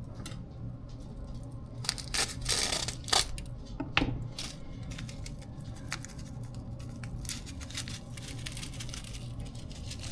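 The corned beef's seasoning packet being torn open: rough ripping about two seconds in, a sharp snap at about four seconds, then light scattered ticks and rustling.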